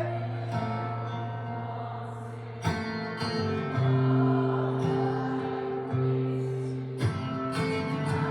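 Guitar music with sustained deep bass notes, played through Starke Sound Beta5 compact bookshelf speakers in an echoey room. New plucked chords come in about a third of the way in and again near the end.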